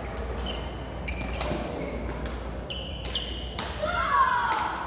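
Badminton rally in an echoing hall: sharp cracks of rackets striking the shuttlecock, with shoes squeaking on the court floor. A child's shout rings out near the end and is the loudest sound.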